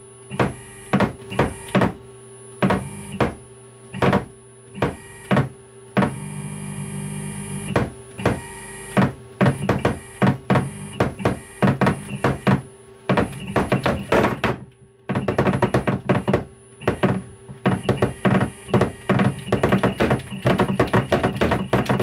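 AC servo motor with a timing-belt pulley making quick short moves, each start and stop a sharp clunk, at a high acceleration setting. It runs steadily for about two seconds partway through, then the moves come faster and closer together until they nearly run into one another. A steady hum sounds underneath.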